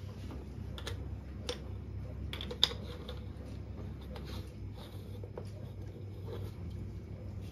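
Small clicks and taps of a stovetop moka pot being handled and its upper chamber screwed onto the base, with one sharper click about two and a half seconds in. A low steady hum runs underneath and drops away about halfway through.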